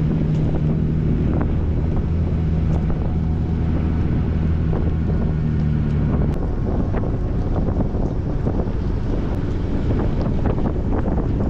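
Jeep driving on snowy, icy roads: a steady low drone from the running gear with wind buffeting the microphone. The drone stops about six seconds in, leaving road rumble with scattered clicks.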